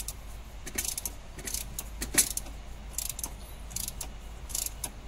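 Ratchet wrench working a bolt at the hub of a Toyota Hilux engine's timing gear: short bursts of metallic clicking repeat about every three-quarters of a second, one burst per stroke of the handle.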